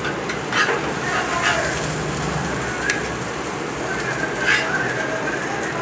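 Hot oil sizzling steadily in a frying pan, with scattered sharp crackles and pops.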